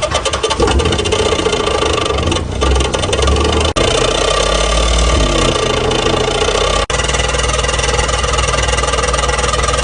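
Renault Kwid's three-cylinder engine running with an abnormally loud exhaust noise from the silencer, the sign of a silencer fault. The sound cuts out briefly twice.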